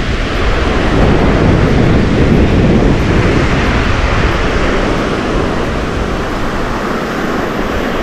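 Small surf waves breaking and washing up a sandy beach, mixed with wind buffeting the microphone as a loud low rumble that eases in the second half.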